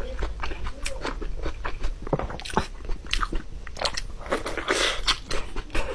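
Close-miked chewing of a large, saucy pork meatball, with many short wet mouth clicks and smacks.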